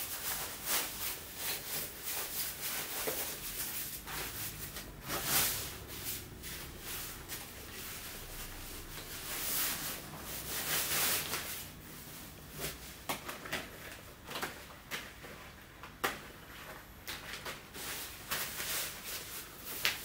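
Rain suit rustling as it is folded by hand, in irregular bursts with a few short clicks.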